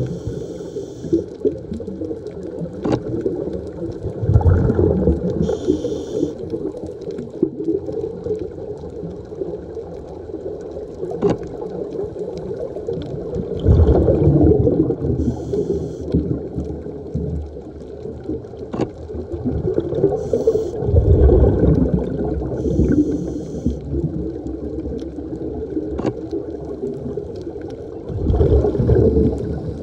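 Scuba diver breathing through a regulator, heard underwater: a short hiss on each inhale and a burst of bubbling exhaust about every seven to nine seconds, over a steady muffled water rumble.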